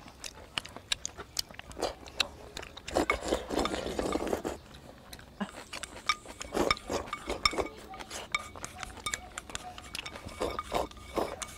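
Chopsticks clicking and tapping against a ceramic bowl as food is scooped from it, with slurping and chewing sounds of eating noodles and meat.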